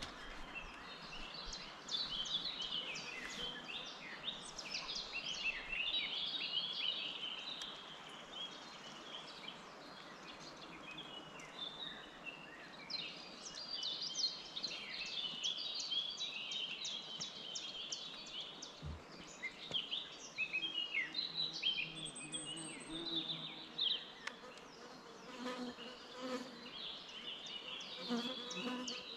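Several Eurasian blackcaps singing at once: a fast, varied warbling of short chirps and glides that overlap almost without a break.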